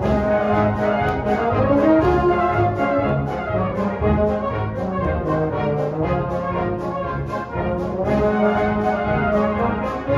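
Military brass band playing a march: sustained brass chords with melody over a steady beat.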